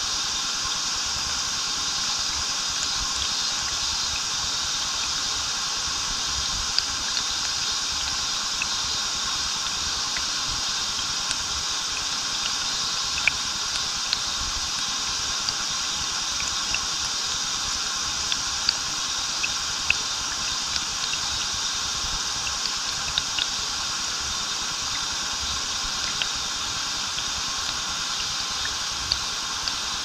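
Small waterfall and stream flowing: a steady rush of water with scattered small splashes and drips.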